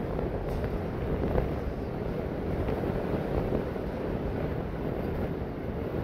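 Wind blowing across the microphone at height, a steady low rushing noise with small gusts.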